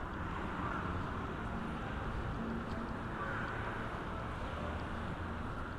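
Steady city street ambience: a low, even hum of traffic with no single event standing out.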